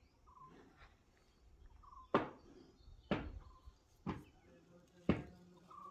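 Sharp knocks repeating about once a second, four in a row starting about two seconds in, with short faint chirps between them.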